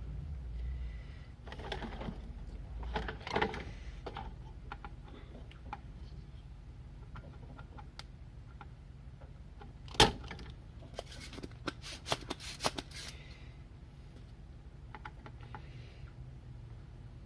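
Small hand tools and a circuit board being handled during desoldering: scattered light clicks and taps, one sharp click about ten seconds in, and a quick run of clicks just after. A low hum sounds under the first few seconds.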